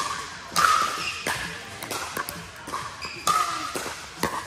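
Pickleball paddles hitting plastic balls: about four sharp pops at uneven intervals, each ringing briefly in a large echoing hall.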